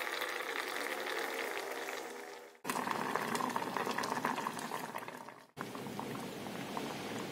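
Red-broth chicken-feet soup with vegetables bubbling at a boil in the pot, with steady fine popping and crackling. The sound fades and breaks off briefly twice, a little under a third of the way in and again past two thirds, where short clips are joined.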